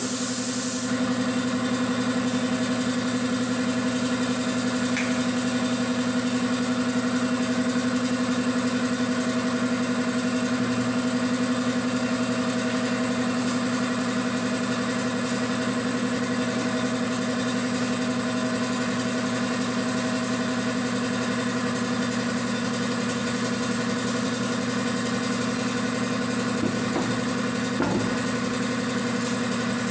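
Air compressor for the paint spray gun running steadily with a constant hum. The spray gun hisses for about the first second, and a couple of light knocks come near the end.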